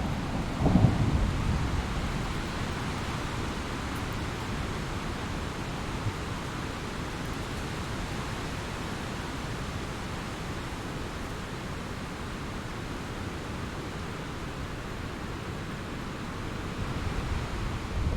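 Thunderstorm: a low rumble of thunder about a second in that fades into steady rain hiss, with another rumble starting to build near the end.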